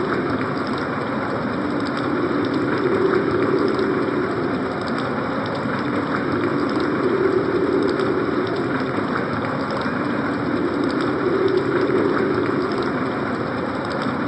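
Synthesized winter storm effect from a Casio CTK-5000 electronic keyboard: a steady rushing noise with a lower howl that swells and fades about every four seconds, and scattered light ticks.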